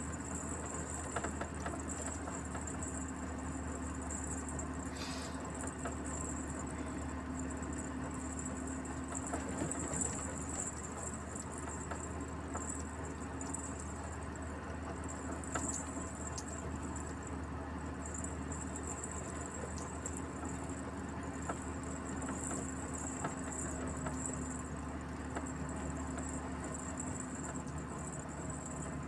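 Steady engine drone and road noise of a moving truck heard from inside the cab, with a thin high-pitched hiss above it.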